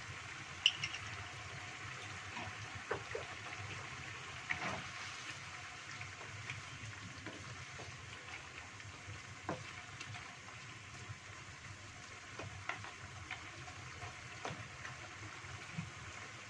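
Chicken feet in sauce sizzling steadily in a wok while a wooden spatula stirs them, with scattered light knocks of the spatula against the pan. The sharpest knock comes about a second in.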